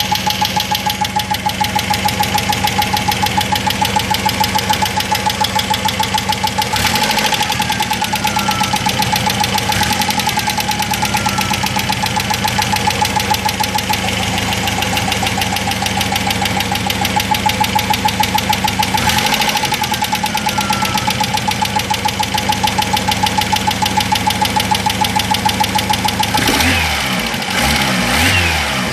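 Chery Amulet engine running with a rapid, regular knock and a steady whine throughout; the owner does not know what is causing the knock. The sound shifts near the end.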